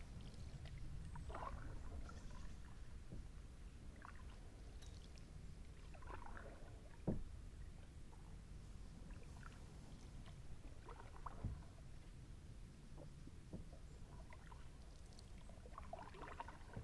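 Kayak paddle dipping and splashing gently in calm river water every few seconds, with trickling drips between strokes. Two sharp knocks stand out, the louder about seven seconds in and another near eleven and a half.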